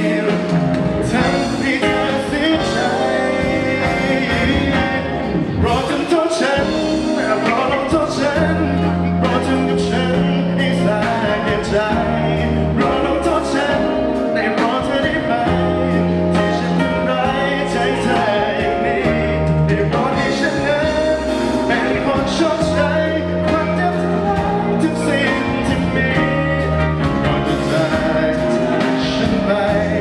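Live band performing a pop song: a male lead vocal sung into a handheld microphone over electric and acoustic guitars, with a steady beat and sustained bass notes.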